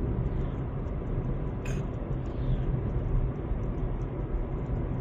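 Steady road and engine rumble inside a moving car's cabin while driving at a steady pace, with one short click a little under two seconds in.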